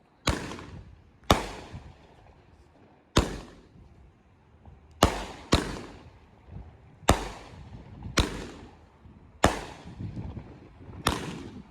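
Consumer fireworks going off: nine loud, sharp bangs at uneven intervals of one to two seconds, each followed by a short fading echo.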